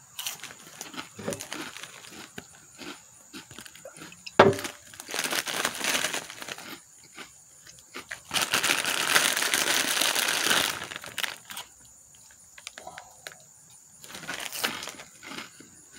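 Plastic Cheetos bag crinkling and rustling in repeated bursts as chips are eaten from it, with one sharp crackle about four seconds in and a longer spell of rustling around nine seconds in.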